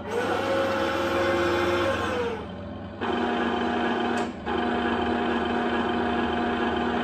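Small electric motors whining in a 1/16 scale RC tank. The turret traverse motor spins up, runs steadily and winds down about two and a half seconds in. About three seconds in, a second steady motor whine starts and carries on.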